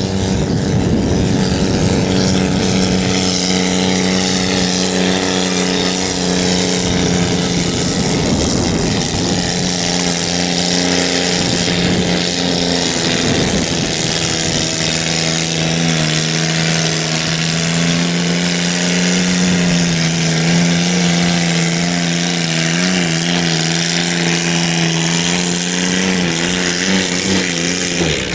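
Garden pulling tractor's engine running flat out under load as it drags a weight-transfer sled. The engine note holds steady, drops a little about halfway through, wavers near the end and then cuts off suddenly as the pull finishes.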